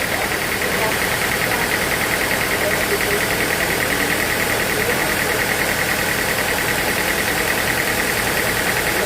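Sawmill machinery running steadily, with a fast, even pulsing in a high hum.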